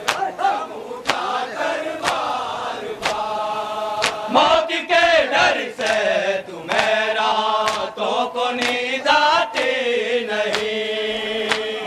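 Group of men chanting a Shia mourning noha (lament), long held sung lines, with a sharp chest-beating stroke (matam) about once a second keeping the beat.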